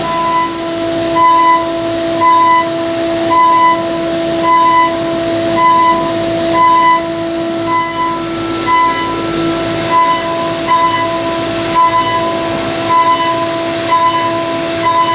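High-speed 5-axis CNC mill cutting aluminum: a steady spindle tone, with a higher cutting tone that pulses on and off about once a second as the cutter makes repeated passes through the pocket.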